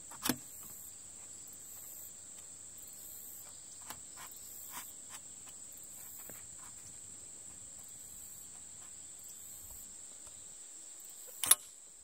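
Steady high-pitched insect drone, with a few faint clicks and one sharp click near the end from handling the plastic-and-aluminium two-piece kayak paddle as its halves are fitted together.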